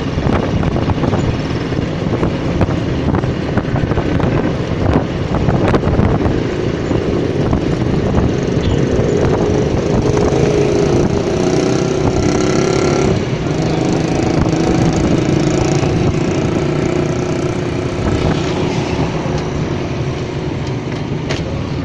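A motorcycle's engine running while riding, under heavy wind noise on the microphone, with other street traffic around it.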